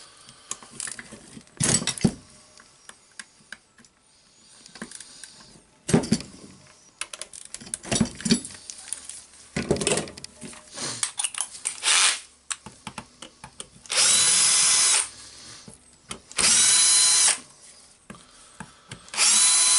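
Cordless drill-driver backing screws out of a Hilti TE706 demolition hammer's housing: three steady runs of about a second each in the second half. Before them come scattered knocks and clicks of metal parts and tools being handled.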